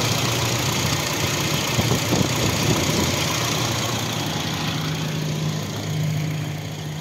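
Toyota Kijang's 1.5-litre four-cylinder petrol engine (Toyota 5K) idling steadily with the bonnet open, running smoothly. It grows a little quieter near the end.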